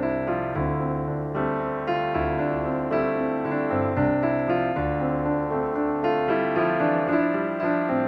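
Background piano music: a calm, unhurried piano piece with a new note or chord about every half second.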